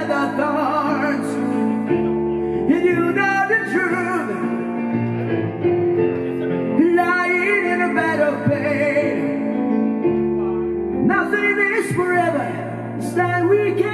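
Live music: a man singing a slow song with vibrato over sustained keyboard chords that change about every two seconds.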